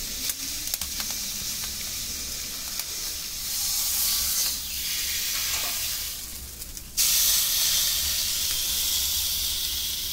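Picanha searing on a hot grill grate, the salted meat and its fat sizzling, with a few light clicks of metal tongs on the grate bars in the first second. About seven seconds in the meat is set down on a fresh side and the sizzle suddenly gets louder.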